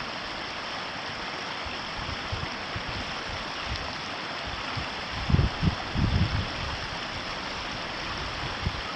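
Ōtakine River flowing: a steady rush of running water. A few low rumbles break in about five to six seconds in.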